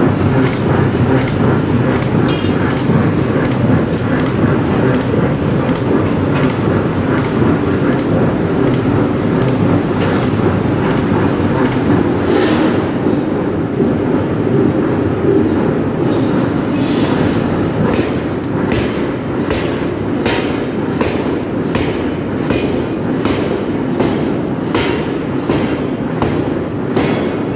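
Loud, steady heavy machinery running in a forging shop. From about two-thirds of the way in, a regular clacking comes in at about twice a second.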